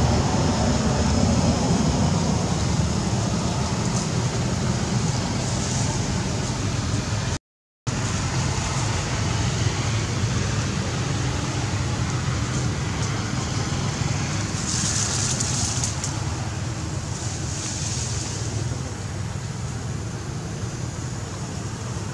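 Steady outdoor background noise, a low rumble with a hiss over it, broken by a short drop to silence about seven and a half seconds in.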